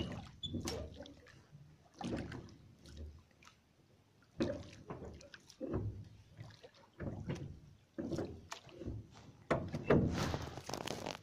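Wet fishing net being hauled over the side of a small boat: irregular splashing and sloshing of water, with a few knocks, in bursts every second or two and busiest near the end.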